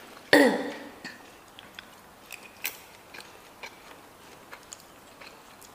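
A brief voice just after the start, then soft scattered clicks of people chewing a stir-fry of crunchy young corn kernels with chicken gizzard and liver.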